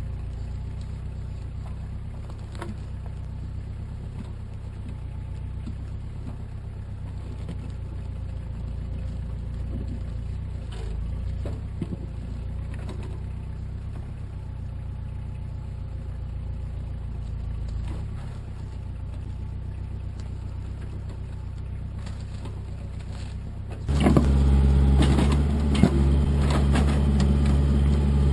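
Kubota backhoe's diesel engine running steadily at low revs, with a few faint knocks. About 24 seconds in it turns suddenly much louder and stays loud.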